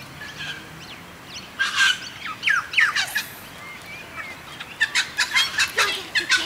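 Wild birds chirping and calling in quick bursts of short gliding notes, busiest in the second half.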